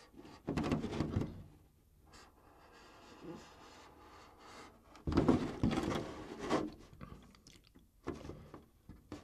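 A scoring tool scratching along the thin clear polycarbonate shell of an RC truck body, with the shell knocking and rustling as it is held and turned. The sound comes in two louder bouts, about half a second in and from about five to six and a half seconds in.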